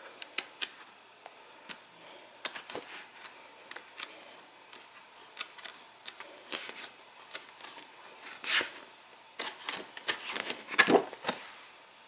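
Sheets of thick textured cardstock in a 12x12 paper pad being flipped over one after another: scattered sharp flicks and clicks of stiff paper, with two louder swishes in the last few seconds.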